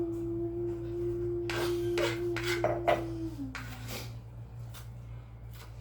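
A single steady pitched tone held for about three seconds, then dropping to a lower note for a moment before stopping, with a few sharp knocks and clicks over it.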